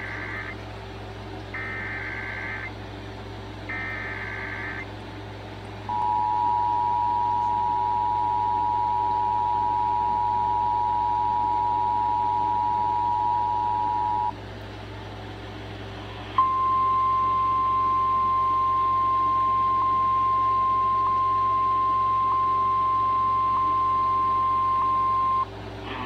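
Emergency Alert System broadcast over the radio: three short screeching bursts of the SAME data header, then the two-tone EAS attention signal held for about eight seconds. After a short gap, a steady single alert tone follows for about nine seconds, announcing a severe thunderstorm warning.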